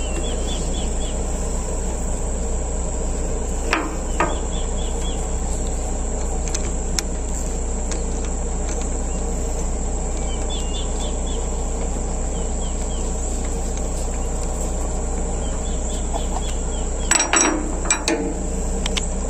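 Steady high-pitched chirring of insects such as crickets over a constant low hum, with small bird chirps now and then. A few sharp clicks and knocks come about four seconds in and, loudest, near the end.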